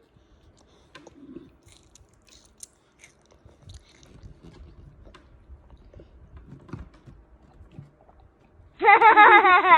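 A child chewing and crunching a chocolate rice snack: soft scattered crunches and mouth clicks. Near the end a loud, high-pitched child's voice call cuts in.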